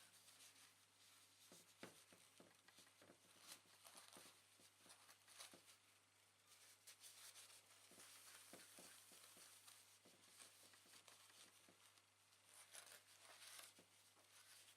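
Very faint scratchy rubbing of toilet paper wiping old thermal compound off a CPU, with scattered small ticks and taps.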